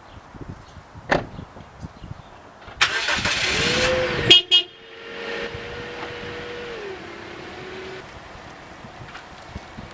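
A car door shuts about a second in. Then the Toyota Corolla's engine starts with a loud burst about three seconds in and runs steadily, its pitch dropping about seven seconds in as the car moves off.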